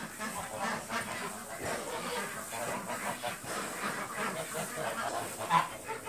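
A flock of penned domestic ducks calling and quacking over one another, with one louder call about five and a half seconds in.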